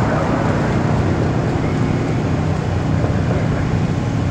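An engine running steadily at a low pitch, under a constant hiss.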